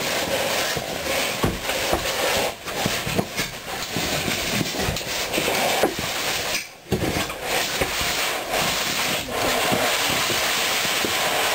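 A caver scraping and rubbing through a corrugated metal culvert pipe, clothing and boots dragging on the metal and the ladder rungs, with scattered small knocks. The noise stops briefly a little past halfway.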